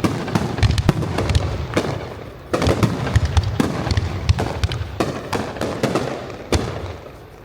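Fireworks display: a dense run of bangs and crackling reports, with a fresh loud salvo about two and a half seconds in and another near six and a half seconds, then dying away near the end.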